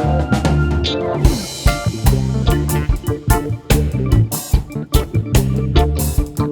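Background music: a band track with guitar, bass and a steady drum-kit beat.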